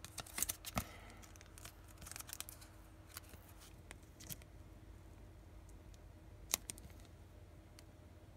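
Faint rustles and light clicks of a trading card being handled and turned in the fingers, with several in the first second and a single sharper click about six and a half seconds in.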